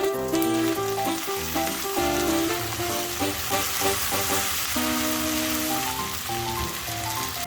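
Food sizzling in oil in a hot frying pan, a steady crackling hiss that cuts off abruptly at the end, under background music.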